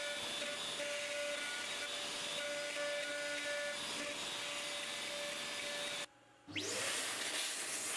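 CNC router (a DeWalt trim router on an X-Carve) running and carving with its dust-collection vacuum, a steady hiss with a pitched whine that cuts in and out as the machine moves. About six seconds in the sound breaks off for half a second, then returns with a rising whine.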